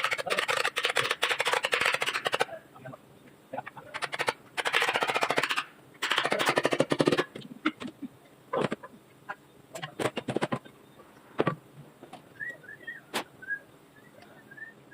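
Rapid clicking of a hand ratchet wrench being worked during an engine teardown, in three runs of one to two seconds each, then a few separate sharp metallic clicks. A small bird chirps several times near the end.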